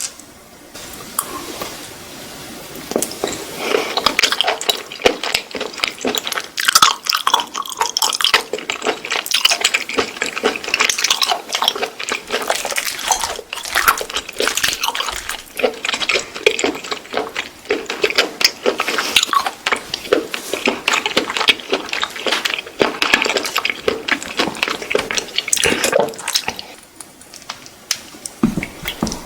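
Wet eating sounds of raw octopus tentacles: chewing, slurping and squelching, with many small sticky clicks.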